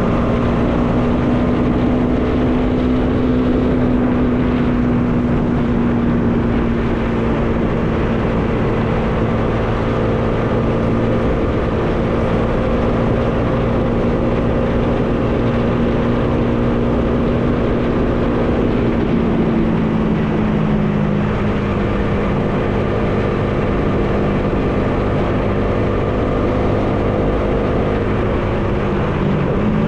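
Bajaj Dominar 400's single-cylinder engine running at a steady cruise, heard from on board with wind rushing past. The engine note sags slowly, changes about two-thirds of the way through, and dips then climbs again near the end.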